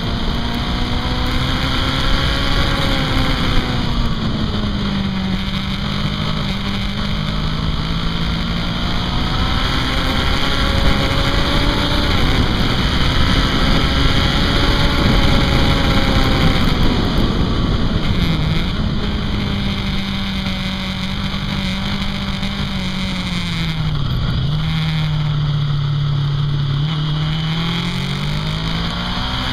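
Honda CB500 parallel-twin engine under way, its note rising and falling with the throttle through the bends and dipping sharply twice in the second half. Steady wind and road noise runs beneath it.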